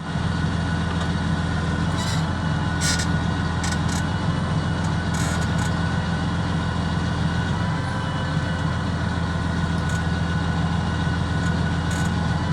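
Massey Ferguson 7614 tractor's diesel engine idling steadily, with a few brief clicks over it.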